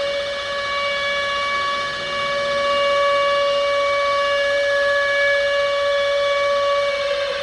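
Civil defense siren sounding a steady tone as a nuclear attack warning, its pitch starting to wind down near the end.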